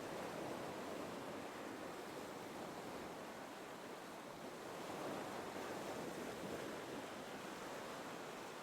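Gentle ocean waves washing in, a soft steady surf that swells twice.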